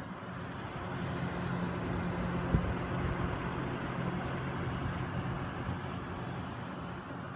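PC case fans and Noctua NH-D15 CPU-cooler fans running in push configuration: a steady rush of air turbulence with a low hum, with no buzzing. It swells and then eases off, and one sharp click comes about two and a half seconds in.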